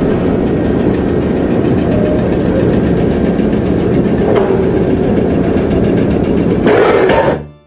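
Loud engine running steadily with a dense rumble, briefly louder near the end before it cuts off suddenly.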